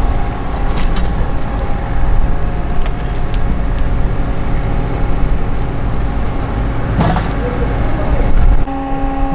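Heavily loaded steel hand trolley rolling over asphalt: a steady low rumble from its wheels, with scattered clinks and rattles from the metal frame and a louder clatter about 7 s in. Near the end it cuts abruptly to a steady mechanical hum.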